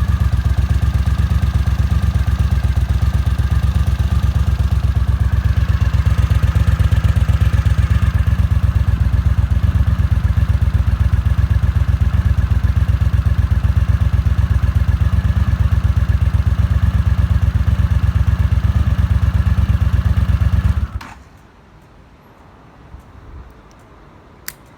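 Honda CX500's liquid-cooled V-twin engine running steadily, then shut off suddenly about 21 seconds in, followed by quiet with a couple of light clicks near the end.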